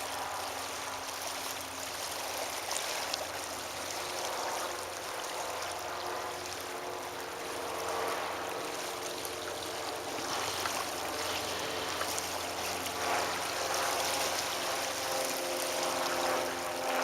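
Steady rush of water noise, with a faint engine drone underneath from the distant floatplane, its pitch shifting slightly near the end.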